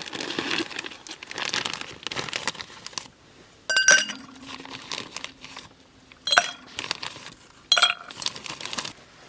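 Crinkling and rustling for about three seconds, then three separate ringing clinks of tableware being set down or knocked together.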